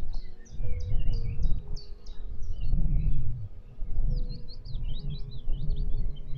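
Songbirds singing: a run of short, high repeated chirps, then a faster twittering phrase about four seconds in. A low, uneven rumble runs underneath and is the loudest part.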